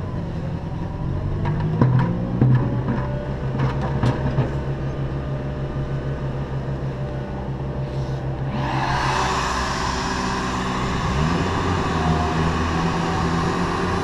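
A motor runs steadily with a few knocks in the first half. About two-thirds of the way in a loud rush of air starts and keeps going: the bee vacuum drawing air through its hose as the wand is raised to the colony.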